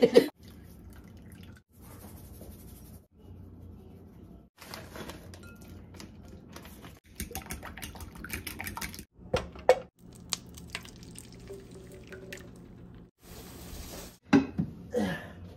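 Kitchen sounds in short snippets cut one after another while eggs are mixed and scrambled: light clinks and taps of a utensil on a glass mixing bowl and a frying pan, with small liquid sounds and a brief steady hiss near the end.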